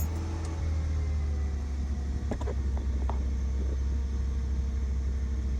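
Car engine idling steadily just after starting, now that the green key indicator has lit and the immobilizer lets it start. A few light clicks about two to three seconds in.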